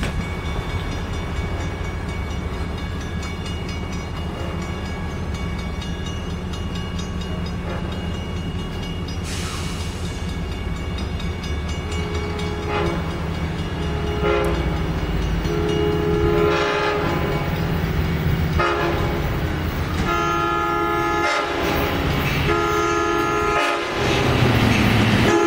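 An approaching Long Island Rail Road diesel train rumbles steadily. From about halfway through, the locomotive's air horn sounds a series of chord blasts that grow louder as the train comes into the station near the end.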